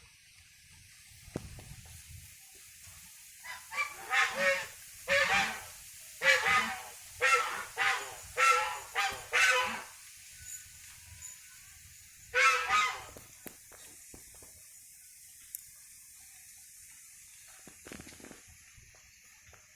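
A bird honking loudly: a quick run of about eight harsh calls, then a single call a couple of seconds later.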